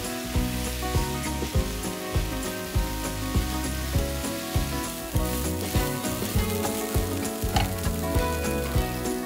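Food sizzling as it fries in oil in a pan, under background music with a steady beat of about two beats a second.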